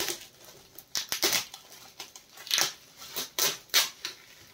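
Shiny gift-wrap paper crinkling and tearing in several bursts as a framed picture is unwrapped by hand.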